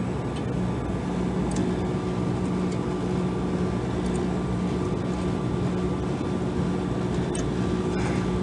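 Steady hum of running ice-machine refrigeration equipment, a low drone with a fainter higher whine, and a few faint clicks.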